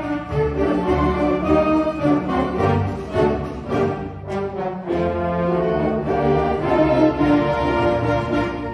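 Concert wind band playing live, brass and woodwinds in full sustained chords, easing briefly about four seconds in before playing on.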